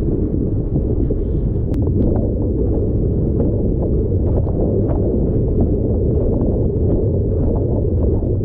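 Wind buffeting the microphone of a boom-mounted action camera on a windsurf rig under way: a loud, steady low rumble, with small irregular knocks through it.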